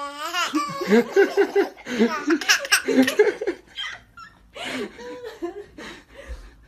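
A person laughing hard in rapid repeated bursts, loudest over the first four seconds, then trailing off into weaker chuckles.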